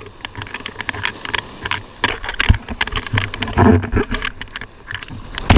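Foamy shallow surf washing and splashing over a GoPro held at the waterline: irregular clicks and crackles of water against the camera housing, with a loud splash right at the end.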